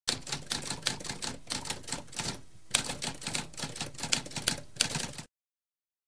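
Typewriter keys clacking in quick, uneven strokes, with a brief pause about halfway, then cutting off suddenly a little after five seconds.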